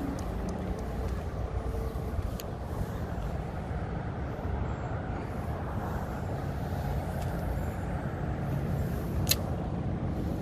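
Steady low outdoor rumble, like distant road traffic, with a single sharp click about nine seconds in.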